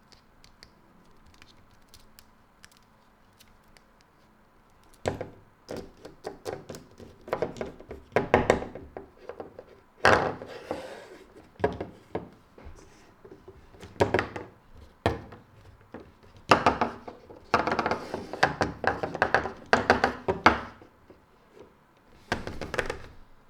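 Toy doctor-kit pieces being handled, giving a run of knocks and clatters that starts about five seconds in and comes in short clusters with brief pauses.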